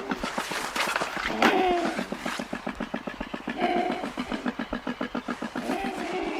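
Andean condor calling: a fast, even pulsing grunt of about nine pulses a second, broken by short pitched notes four times, roughly every two seconds.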